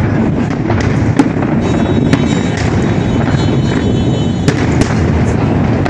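Far-off aerial fireworks bursting: a steady rumble of overlapping booms, with sharper bangs about a second in, at two seconds, and twice near the end.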